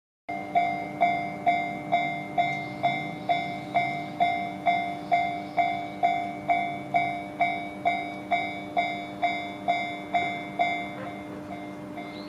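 Japanese railway level crossing warning bell ringing in a steady rhythm, about two strikes a second, with a steady hum underneath; the strikes turn quieter near the end.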